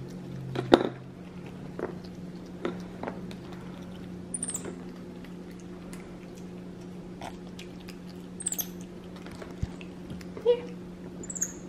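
A white-faced capuchin monkey eating, with scattered small clicks and smacks of chewing and handling food and a few brief, high-pitched chirps, over a steady low hum.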